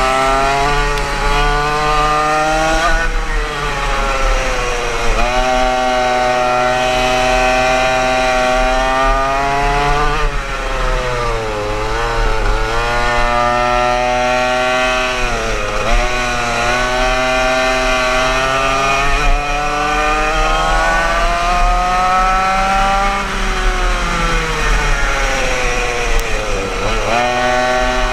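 Yamaha KT100 100cc two-stroke kart engine heard onboard at racing speed. Its revs climb steadily along each straight and drop sharply under braking for the corners, five or six times over.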